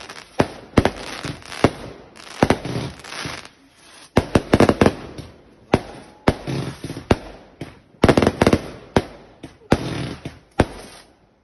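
Garden fireworks going off in a multi-shot barrage: a rapid string of sharp bangs that thickens into dense clusters every second or two.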